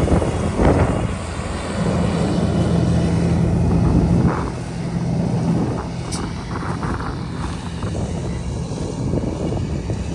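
Combine harvester engine running steadily in the field, a loud low drone; a steady hum in it strengthens about two seconds in and eases off around six seconds.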